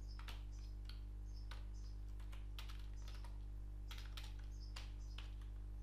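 Computer keyboard typing: irregular keystroke clicks in short runs, over a steady low hum.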